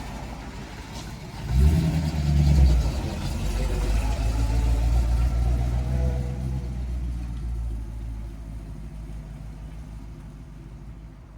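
1956 Ford F-250 truck's engine under way, revving up sharply about a second and a half in, then running steadily and gradually fading toward the end.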